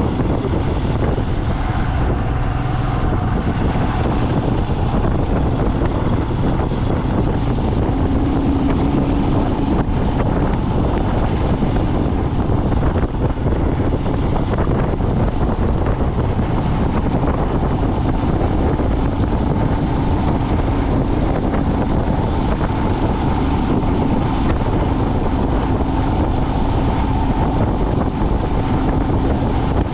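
A vehicle driving on the road: steady engine and road noise with wind buffeting the microphone.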